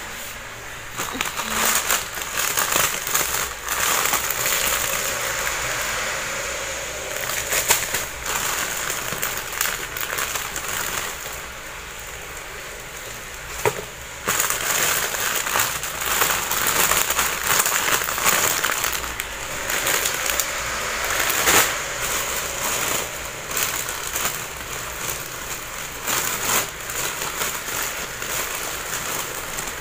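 A thin plastic shopping bag and clear plastic-wrapped packages rustling and crinkling as hands rummage through them, in uneven bursts with sharp crackles and a brief lull about halfway through.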